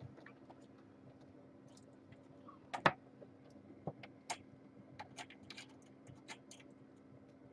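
Scattered light clicks and taps from kittens scampering and tumbling in their pen, the loudest about three seconds in and a quick run of them between about four and six and a half seconds, over a steady low hum.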